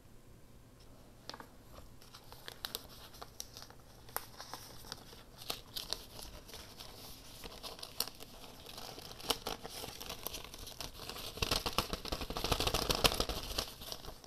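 Paper and craft materials being handled: scattered crinkling and rustling with small clicks, growing denser and louder over the last few seconds.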